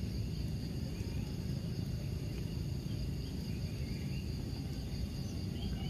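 Steady outdoor chorus of insects chirring in a high, even drone, over a low steady rumble, with a few faint short chirps.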